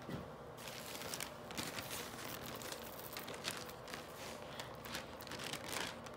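Thin printing paper crinkling and crackling in an irregular run as it is peeled up off an inked fish for a gyotaku print.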